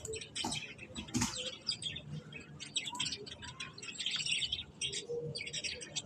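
Budgerigars chattering in a rapid run of short, scratchy chirps, with a couple of sharper clicks near the start.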